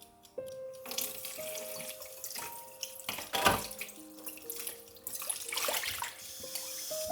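Water running from a tap into a sink, starting about a second in, with a brief louder knock about halfway through and a short dip before it runs on.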